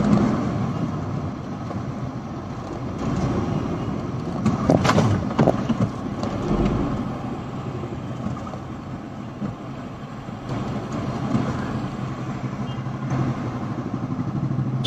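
Steady engine and road noise heard from inside a moving car driving close behind a bus in traffic, with a brief sharp sound a little under five seconds in.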